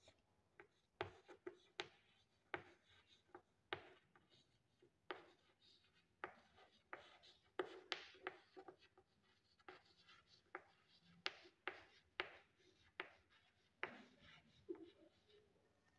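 Chalk writing on a chalkboard: an irregular run of short taps and scratches as letters are formed, with brief pauses between words.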